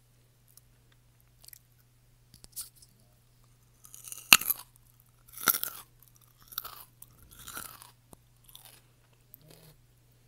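A person biting into and chewing crunchy raw food close to the microphone. A few small crackles come first, then one sharp, loud crunching bite a little after four seconds. Chewing crunches follow about once a second.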